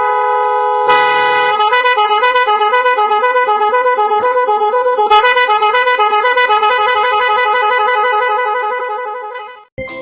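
Truck horn blaring loudly in one long chord, taking on a fast pulsing warble with shifting pitches about a second in, then fading out near the end.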